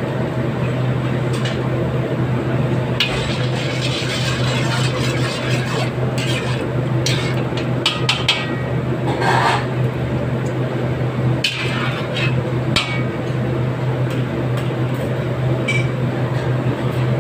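Metal ladle stirring and scraping sauce and sesame seeds in a steel wok. Clicks and scrapes come through the middle, over a steady low hum.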